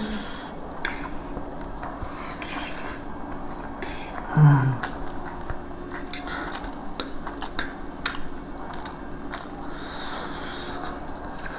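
Eating at a table: cutlery clicking and scraping against a plate, with bites and chewing. A brief low vocal murmur comes about four seconds in.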